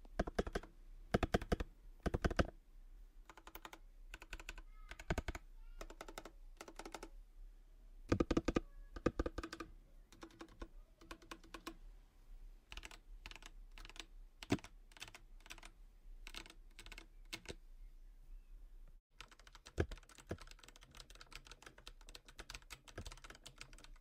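Typing on a Redragon K530 Pro mechanical keyboard fitted with Akko V3 Cream Yellow linear switches: a run of key clacks. There are louder clusters of strikes near the start and about eight seconds in, and faster, denser typing after a brief break about nineteen seconds in.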